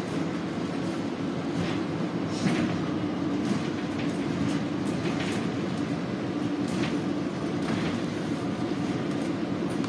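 Cabin noise of a 2019 Nova Bus LFS hybrid city bus under way: a steady low drone from the drivetrain and road, with brief rattles of the fittings about once a second.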